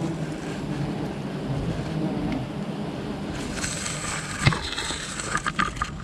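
Steady hum of wild honeybees swarming around a freshly cut comb, mixed with wind rushing on the microphone. A sharp click comes about four and a half seconds in, and a few faint scrapes near the end.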